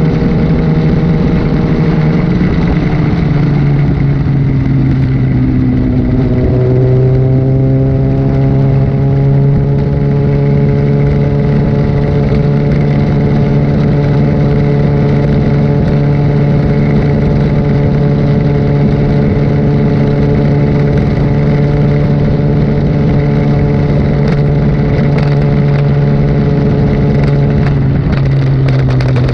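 Liter-class sport bike engine running at cruising revs. Its note drops a couple of times in the first several seconds, holds steady for most of the stretch, then drops again near the end.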